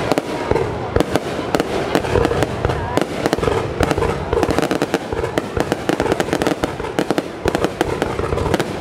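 Aerial fireworks set off at close range: a rapid, unbroken barrage of bangs and crackles as shells launch and burst overhead.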